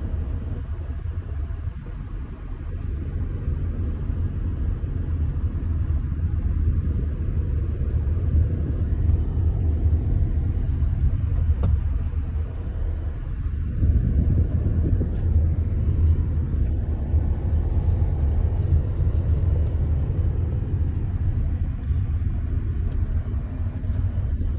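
Steady deep rumble of a car driving down a mountain road, tyre and engine noise heard from inside the vehicle.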